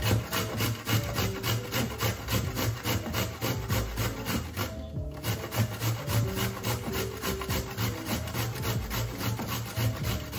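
A carrot being grated on a stainless steel box grater: quick, even scraping strokes, about four a second, with a brief pause about halfway through.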